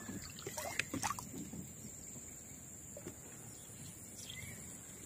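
Kayak paddle dipping and splashing in calm water, with a few light knocks and splashes in the first second or so, over a thin steady high-pitched tone.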